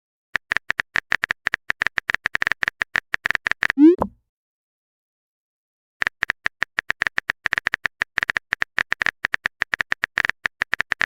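Phone keyboard typing sound effect: rapid clicks, roughly ten a second, for about three seconds. A short rising message-sent blip follows about four seconds in. After a two-second pause the typing clicks start again.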